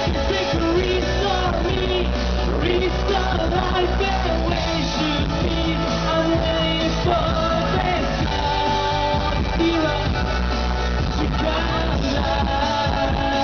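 A band playing a rock song with a lead singer, at a steady level throughout.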